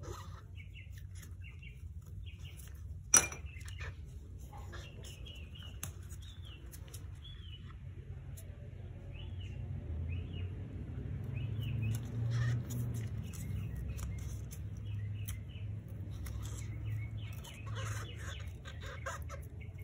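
Small handling noises as nitrile-gloved fingers and a plastic pick tool work the protective film off small laser-cut kit parts: light squeaks and faint clicks throughout, with one sharp click about three seconds in, over a low steady hum.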